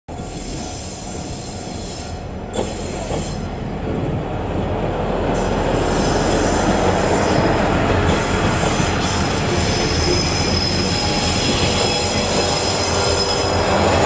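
A two-car set of KiHa 48 diesel railcars drawing near and passing, its engines and wheels on the rails growing louder over the first several seconds and then holding steady. From about ten seconds in there is a thin, steady high squeal from the wheels. There is one short knock a couple of seconds in.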